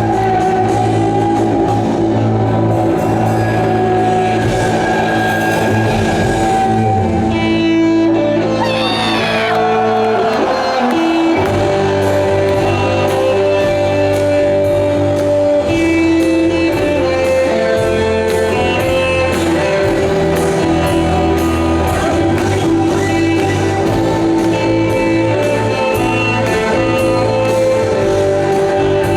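Live rock band playing amplified in a large arena hall: electric guitar over held chords, with a steady beat through most of it.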